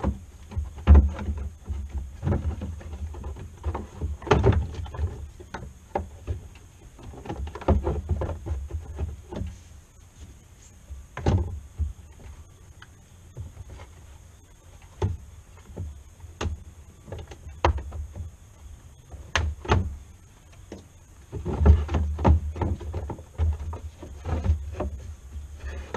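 Irregular knocks, clunks and scrapes of a truck's lower radiator fan shroud being handled and worked loose in the engine bay, with a denser run of thumps near the end.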